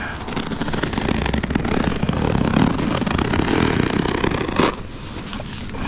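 Synthetic turf being worked by hand: a dense, rapid crackling scrape of the turf's backing and blades that stops abruptly near the end.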